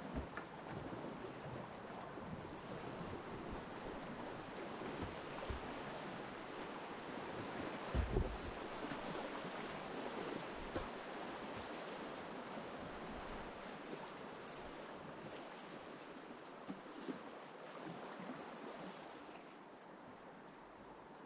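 Rushing white water of a shallow, rocky river rapid close around a kayak, with paddle strokes splashing and a louder dull thump about eight seconds in. The rush grows quieter in the last few seconds as the water calms.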